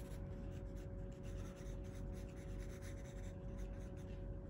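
Pencil scratching on sketchbook paper in many short, quick strokes as a drawing is sketched. A faint steady hum sits underneath.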